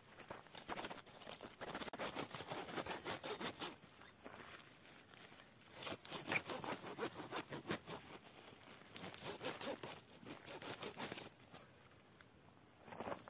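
Dry, brittle desert shrubs being torn up by hand for firewood: crackling and snapping of twigs and roots, in several bursts of a few seconds each.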